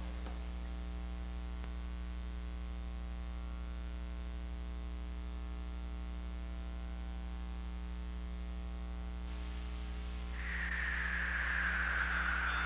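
Steady low electrical hum with faint hiss. About ten seconds in, a louder rushing sound comes in and slowly falls in pitch.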